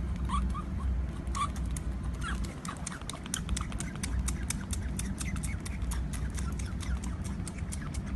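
Short high chirps from a small animal, over a dense run of rapid clicks and a low rumble.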